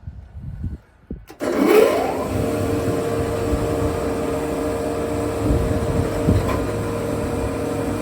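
REMA DMLB-40 sliding table saw switched on: its motor and blade start about a second and a half in, rise in pitch as they spin up to speed, then run steadily with an even whine.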